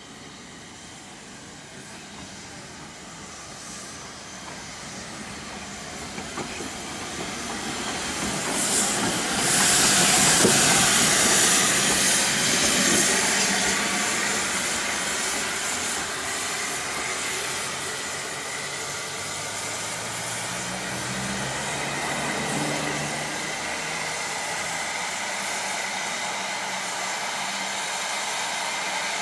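Narrow-gauge steam locomotive No. 190 (Lyd, a 2-6-2 tank engine) hissing steam as it stands and edges slowly along. The hiss swells to its loudest about ten seconds in, then carries on steadily.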